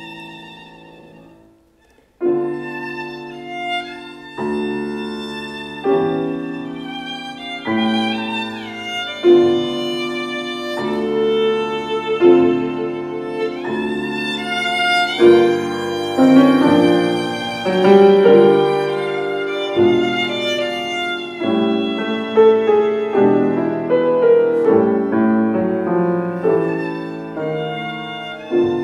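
Violin and grand piano playing a duet live: a held note dies away into a brief pause about two seconds in, then both come back in, piano chords under a violin melody with a few slides.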